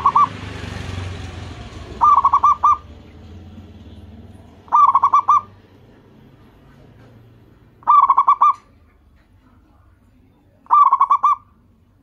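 Zebra dove (perkutut) cooing: short phrases of four or five quick staccato notes, repeated about every three seconds.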